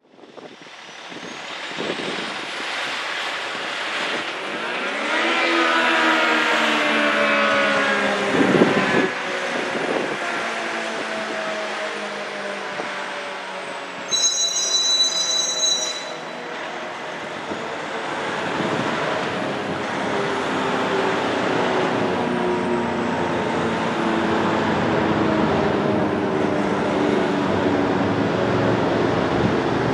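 ACA Allertor 125 rotating tornado siren running a growl test. Its motor spins up with a rising wail over the first few seconds, then winds down slowly with the pitch falling, while the sound swells and fades every couple of seconds as the head rotates. A brief high tone cuts in for about two seconds near the middle.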